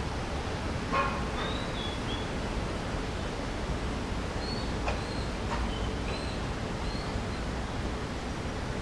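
Steady outdoor hiss with several short, high bird chirps scattered through it, and a sharp click about a second in.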